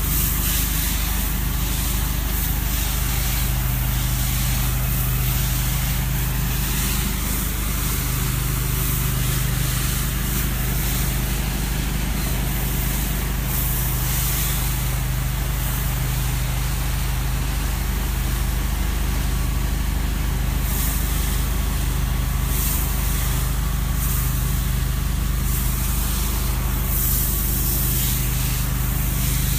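An engine-driven spray rig running steadily, with a low engine drone under the hiss of a wand spraying a foaming bleach-and-soap mix onto concrete.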